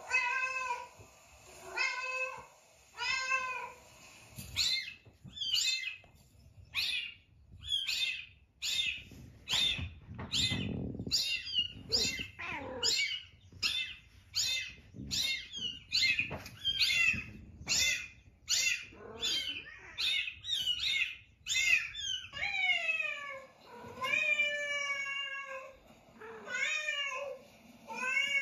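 Cats meowing over and over. It starts with spaced meows, then comes a quick run of short mews about two a second, and near the end there are longer meows that fall in pitch.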